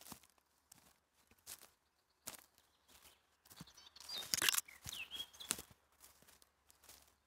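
Footsteps on a dry forest dirt path littered with twigs and needles, uneven crunching steps with a louder scuffling crunch a little past halfway. A bird chirps briefly a couple of times around the middle.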